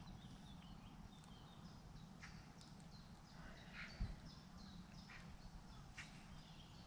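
Faint bird calls: scattered short chirps over a quiet outdoor background, with one soft bump about four seconds in.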